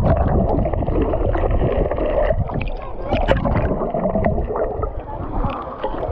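Seaside water sounds: the sea sloshing, under a steady low rumble, with scattered short knocks.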